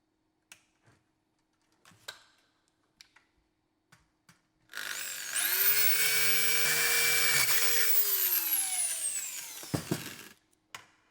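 A few faint handling clicks, then a cordless power tool's electric motor spins up with a rising whine, runs steadily for a couple of seconds and winds down as it coasts to a stop, while racks are fixed into the louver frame with blind rivets.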